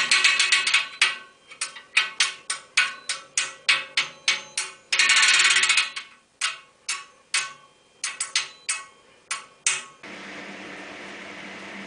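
Repeated sharp knocks on a hard object, about two a second, each ringing briefly, with a dense rattling run near the middle. About ten seconds in they stop and a steady rushing noise with a low hum takes over.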